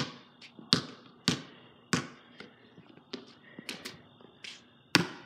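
Basketball bouncing on concrete: a string of about ten sharp, uneven bounces, the loudest right at the start and shortly before the end.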